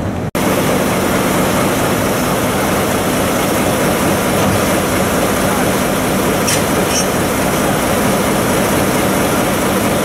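DE10 diesel-hydraulic locomotive's V12 diesel engine idling close by, a steady low running noise, with a couple of short high clicks about six and a half seconds in.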